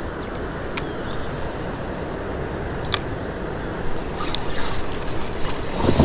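Wind buffeting the microphone over water lapping against a kayak, with two sharp clicks about one and three seconds in.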